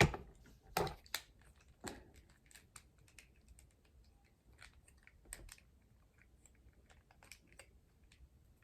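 Plastic Transformers action figure being handled during transformation: irregular clicks and taps as its parts are moved and pegged into place, the sharpest in the first two seconds.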